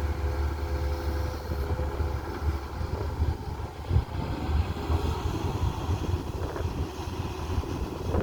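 Tata Hitachi excavator's diesel engine running steadily at work, with a few knocks and clanks, the sharpest about four seconds in.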